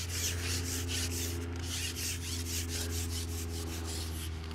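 Carbon fishing pole being shipped back over a pole roller, sliding and rubbing in quick strokes about four times a second.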